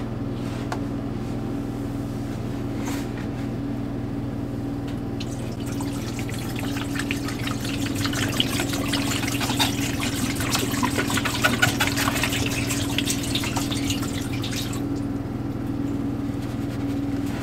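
RV antifreeze being poured from a plastic jug into the drum of a Splendide washer-dryer combo. The liquid splashes into the drum for about nine seconds, starting about five seconds in, over a steady low hum.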